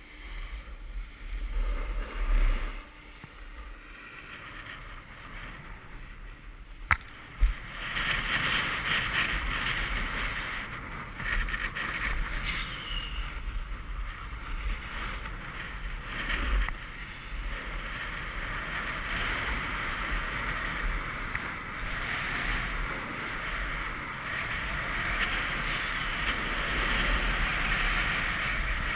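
Snowboard sliding and carving on packed snow: a steady scraping hiss, with wind buffeting the microphone. It is quieter for the first several seconds, there is a sharp click about seven seconds in, and then the scrape picks up and holds steady.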